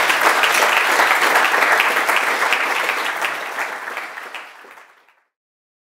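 Audience applauding, a dense patter of many hands clapping that dies down and fades out about five seconds in.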